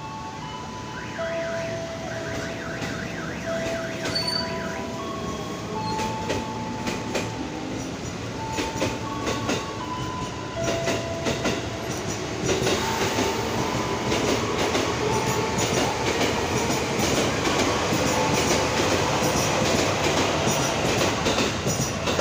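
JR 205-series electric commuter train moving out along the platform and gathering speed. Thin steady tones shift in pitch during the first half. From about halfway through, the wheel and running noise grows louder, with many quick clicks.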